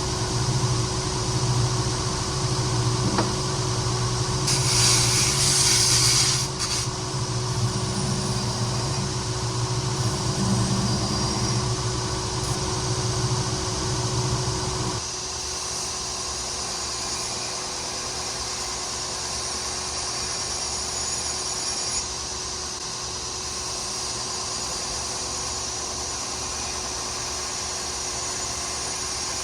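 Power grinder running steadily while grinding a bevel into a forged railroad-spike knife blade, with a loud hissing burst of steel on the abrasive about five seconds in. About halfway through, the sound switches abruptly to a quieter steady run.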